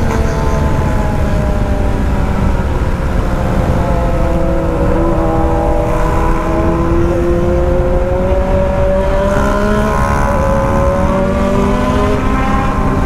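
BMW R1200 GS boxer-twin engine running under way at road speed, with a steady wind rumble on the microphone. The engine note sags a little in the first few seconds, then climbs slowly as the bike picks up speed.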